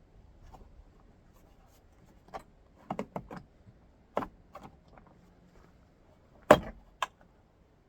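Plastic door-handle parts being worked onto a tractor cab door: scattered light clicks and taps, then two sharper knocks about half a second apart near the end.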